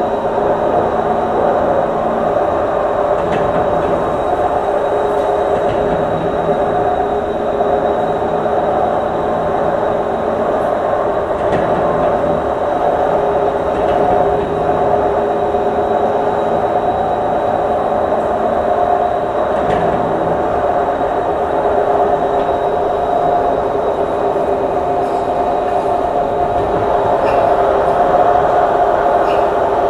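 Singapore MRT train running, heard from inside the carriage: a steady drone of motors and wheels on the rails, with a few faint clicks now and then.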